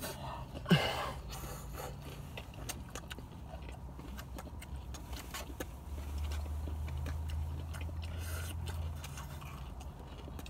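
Mouth noises of someone chewing very hot food and blowing out to cool it, with a short exclamation about a second in. Under it runs the car's low steady rumble, which swells for a few seconds past the middle.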